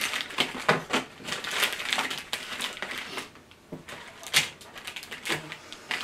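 Crinkly plastic snack wrappers and small candy boxes being shuffled and set down on a wooden table: an irregular run of rustles and light taps, with sharper ones about a second in and again past the middle.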